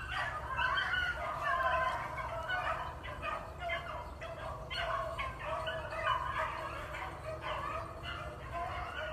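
A pack of beagles baying in chorus, several voices overlapping without a break, as the hounds run a rabbit's scent trail.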